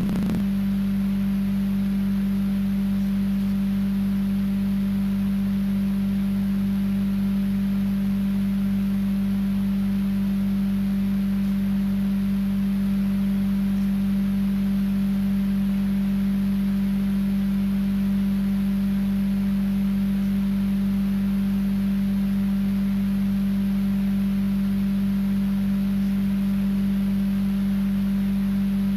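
A loud, steady, low electronic tone, one unchanging pitch with faint overtones, that switches on abruptly out of dead silence and drowns out everything else, with no speech audible.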